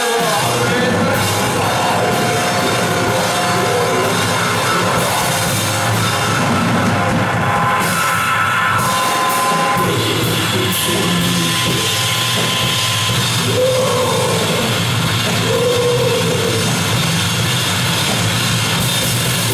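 Loud live band music, dense and distorted, in a heavy rock vein, playing without a break.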